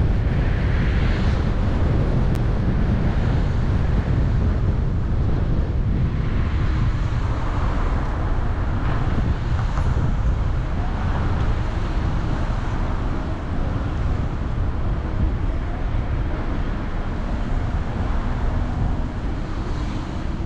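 A car driving: a steady low rumble of road and wind noise, with wind buffeting the microphone.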